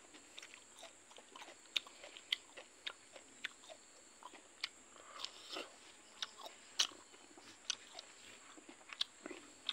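A person chewing a mouthful of cooked silkworms and rice, with sharp crisp crunches at irregular moments, the loudest about seven seconds in.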